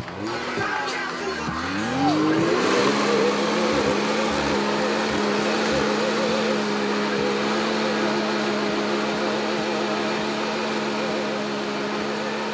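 Can-Am Maverick X3's turbocharged three-cylinder engine revving up about two seconds in and held at high, steady revs while the tires spin on the slickrock, smoking as they heat up. The steady engine note runs over the hiss of the spinning tires until near the end.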